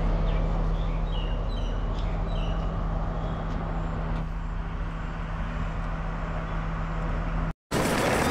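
S12 diesel multiple unit's engine idling steadily with a low hum while the train stands still, with a few short bird chirps in the first few seconds. Near the end it switches to the louder running noise of the train moving along the track.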